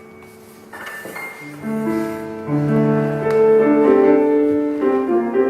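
Grand piano playing a short passage of chords that grows louder about a second and a half in, in a rehearsal of a piece for cello and piano.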